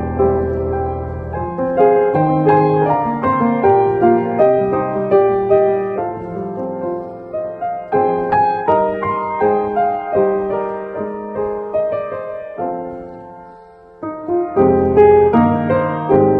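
Solo piano playing a gentle Christmas tune, one note after another over held low notes. The music dies away about thirteen seconds in and a new phrase starts a second later.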